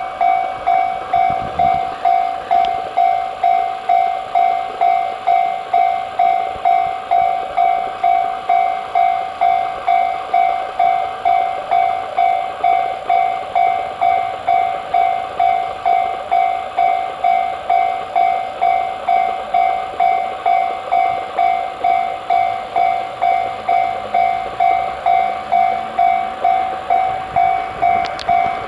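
Electronic level crossing alarm bell ringing steadily, about one and a half strikes a second, warning that the crossing is closed for an approaching train.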